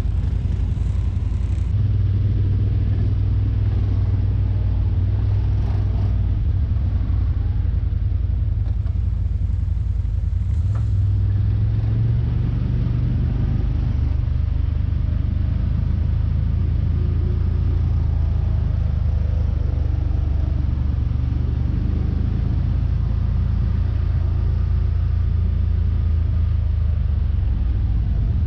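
CFMOTO ZForce 950 HO EX side-by-side running at a steady pace, its engine and drivetrain a steady low rumble.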